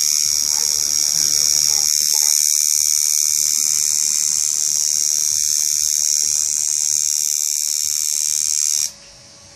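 Tattoo machine running with a steady high-pitched whine, cutting off abruptly near the end.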